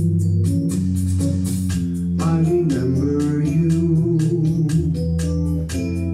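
Electronic keyboard playing held, organ-like chords and a melody over a steady accompaniment beat, with no singing.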